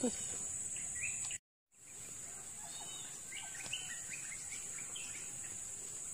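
Insects trilling in a steady high-pitched drone, with a scatter of short bird chirps in the middle. The sound drops out for a moment about a second and a half in.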